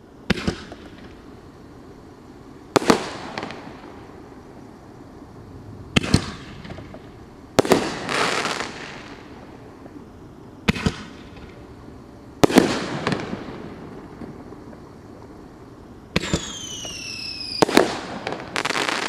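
Consumer aerial firework shells (Phantom G-100 Aerial Rampage Shells) going off one after another: about eight sharp bangs a few seconds apart, several with a trailing hiss. Near the end a whistle glides down in pitch just before a louder bang.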